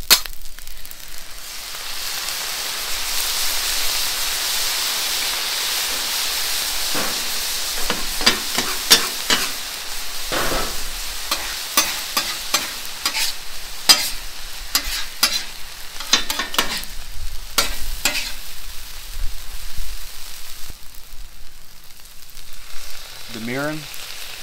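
Fried rice sizzling on a hot steel flat-top griddle; the hiss is louder for several seconds near the start. Then come repeated scrapes and taps of a metal spatula on the griddle top as the rice is stirred.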